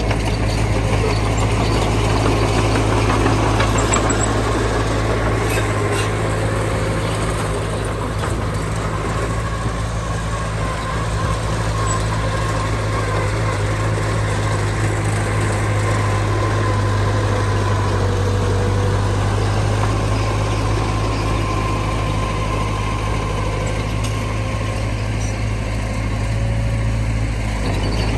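Diesel engine of earthmoving machinery running steadily with an even low hum, and a faint whine above it.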